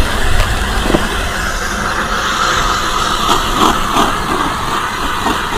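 Power ice auger drilling a hole through lake ice, a steady grinding whirr that grows louder about two seconds in, with a few sharp knocks.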